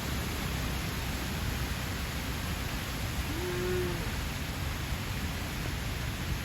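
Steady background noise with a low rumble. About halfway through, a calf gives one short, faint call.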